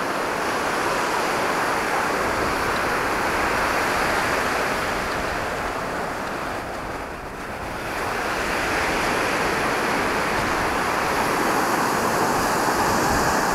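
Sea surf washing on a sandy beach, with wind buffeting the microphone; the wash eases about halfway through, then swells again.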